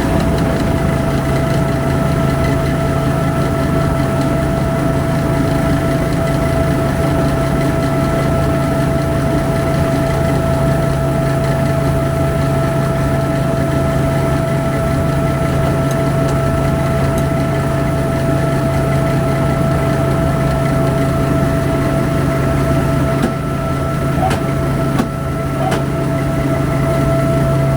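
Kaneko KMP-400JX rice huller running steadily with an even hum after all its bearings were replaced to cure an abnormal noise.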